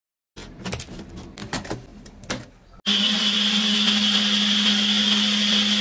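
A few light clicks and knocks, then about three seconds in a personal bullet-style blender's motor starts and runs steadily with an even whine, blending biscuits, milk and sugar into a milkshake.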